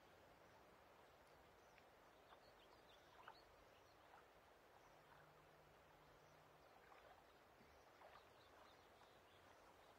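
Faint lake ambience recording: a soft, even outdoor wash with many short, faint chirps scattered throughout.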